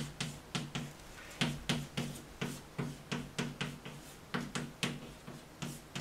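Chalk writing Japanese characters on a blackboard, stroke by stroke: a quick run of sharp taps and short strokes against the board, about three or four a second.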